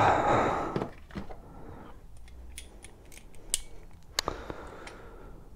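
Metal spanners and sockets clicking and clinking as they are handled and picked out of a plastic socket-set case: scattered light clicks, with one sharper clink that rings briefly near the end.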